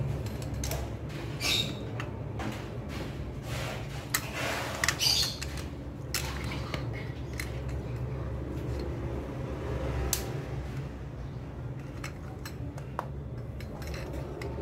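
Light clicks and metallic taps from a chrome gooseneck spout being handled and screwed by hand into a wall-mounted kitchen tap, most of them in the first six seconds, over a steady low hum.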